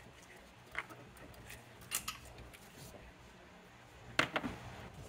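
Plastic intake plenum on a 3.6L Pentastar V6 being worked loose from its studs: a few light clicks and knocks, two close together about two seconds in, and a louder clatter about four seconds in.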